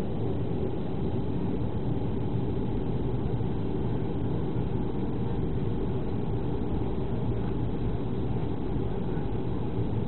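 Steady jet-engine and airflow noise heard inside the cabin of a Boeing 737, a low, even rumble with no change in pitch.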